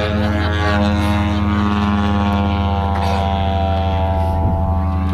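Engine and propeller of a 35% scale Aeroworks Extra 260 radio-control aerobatic plane in flight, a steady drone whose pitch sinks slowly.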